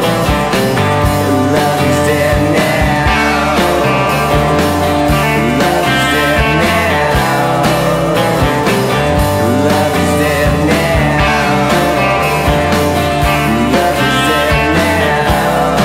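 Background music with a steady drumbeat.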